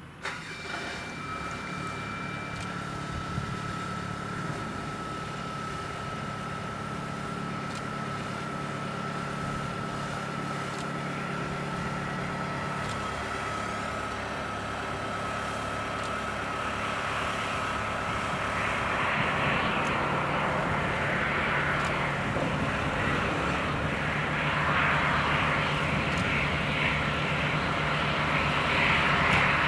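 Airbus A319-114's CFM56 turbofan engines on approach and landing: a steady high whine over a low rumble, which grows into a louder, rougher rushing roar in the second half as the jet rolls out on the runway.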